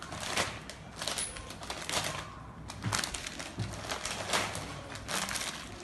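A plastic snack packet and the dry, crunchy noodle snack inside it crinkling and crackling as they are handled, in irregular short crackles.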